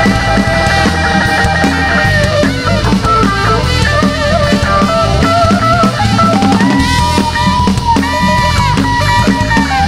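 Live band music: a tenor saxophone plays a solo line of long held and bending notes over a rock drum kit, electric bass and electric guitar.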